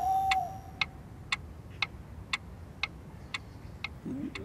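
A steady clock-like ticking, about two ticks a second. A held wavering high tone fades out about half a second in, and a short sliding low sound comes near the end.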